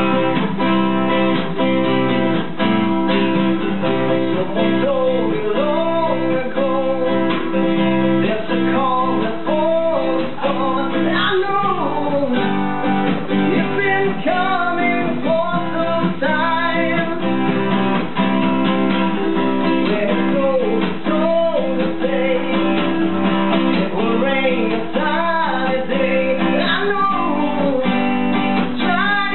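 Two acoustic guitars played live: steady strummed chords with a melodic line that bends in pitch over them.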